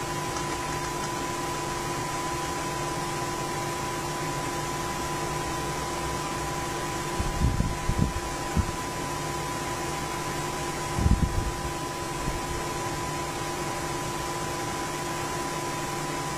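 Steady background hum and hiss with a few faint steady tones, broken by a few low bumps about seven to eight seconds in and again around eleven seconds.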